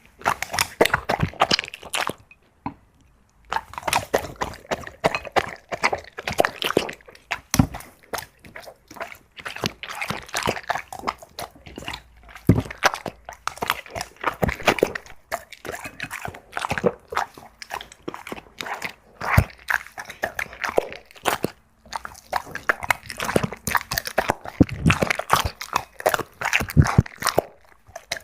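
A dog chewing and crunching food in quick, irregular bites, with a short pause about two seconds in.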